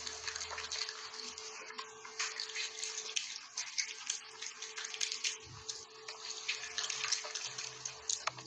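Raccoon eating grapes: wet, irregular smacking and crackling mouth noises, continuous and uneven.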